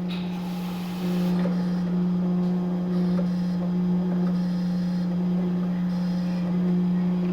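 Paper guillotine cutter's electric motor running with a steady, loud hum, a little quieter for about the first second.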